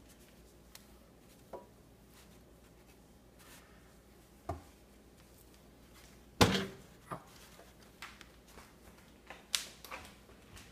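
Scattered knocks and clicks of things being handled inside an open microwave oven, the loudest a single thunk about six and a half seconds in, with a few lighter clicks after it.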